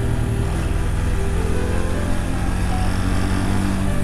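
Honda Super Cub 110's single-cylinder four-stroke engine running at a steady cruise while riding, a constant low hum whose pitch shifts slightly about halfway through, under a dense rumble of wind and road noise.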